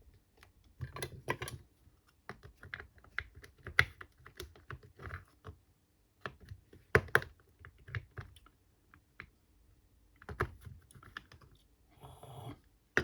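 Irregular light plastic clicks and taps as the cordless screwdriver's plastic casing and small internal parts are handled and fitted together during reassembly, with a short scrape near the end.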